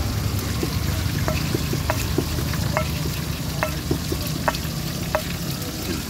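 Stone pestle grinding and mashing ketoprak sauce on a ceramic plate: a wet scraping and squelching, with a sharp clink of stone on ceramic about once a second, over a steady hiss.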